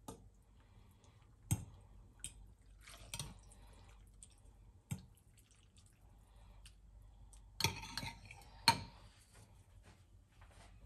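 Metal spoon and fork stirring noodle soup in a ceramic bowl: scattered clinks of cutlery against the bowl and light sloshing of broth, with the sharpest clinks about a second and a half in and near the end.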